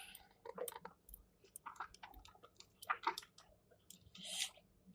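Faint scattered clicks and rustles of small plastic kit parts and wires being handled and fitted together, with a brief rustle about four seconds in.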